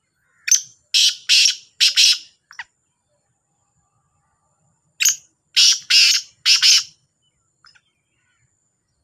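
Black francolin calling: two loud phrases of about five harsh, grating notes each, the first starting about half a second in and the second about five seconds in.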